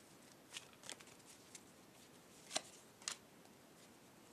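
Tarot cards being handled and one card laid down on a cloth-covered table: a few faint, crisp card flicks, the two clearest about two and a half and three seconds in.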